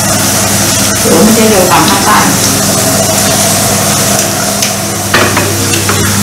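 Steady electric hum under a constant hiss. About a second in, a short gliding vocal sound from one of the diners. About five seconds in, a light click.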